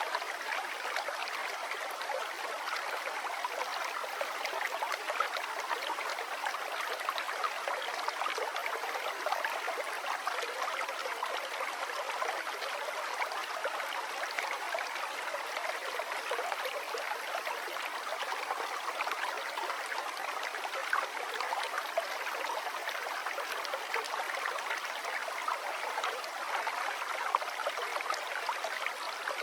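River water flowing steadily: an even, unbroken rush of rippling water, mostly mid-pitched, with no deep rumble.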